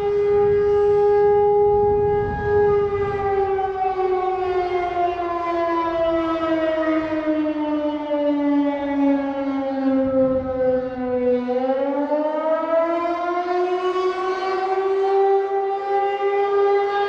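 Siren sounding as an emergency alert alarm: a steady tone that, a few seconds in, slowly falls in pitch for about nine seconds, then rises back over a few seconds to its original pitch and holds there.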